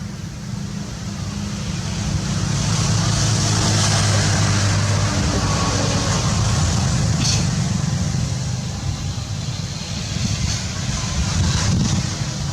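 A motor vehicle passing: a low engine hum with road noise that swells about two seconds in, holds for several seconds, then eases off.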